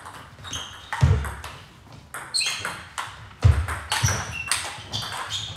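Table tennis rally: the ball clicks sharply off the paddles and table in quick succession, with a few short high squeaks and two heavier thumps.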